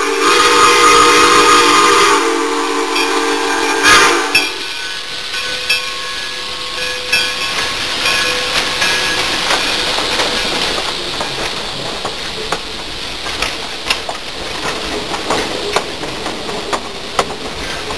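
Steam locomotive's whistle blowing a steady chord for about four and a half seconds, loudest in the first two. Then the locomotive and its passenger coaches pass close by, with a steady rumble and sharp clicks from the wheels on the rails.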